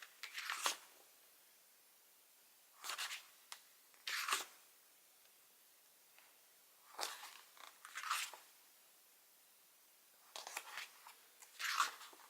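Paper pages of a diary being turned, a short rustle of paper in pairs about a second apart, four times, with quiet between.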